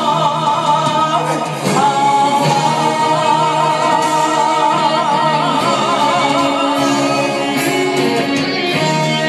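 Live singing of a slow song over instrumental accompaniment: the singer holds a long note with wide vibrato through the middle, then moves on to a new phrase near the end.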